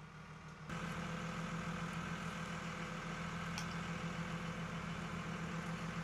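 A bucket truck's engine idling steadily, coming in suddenly just under a second in.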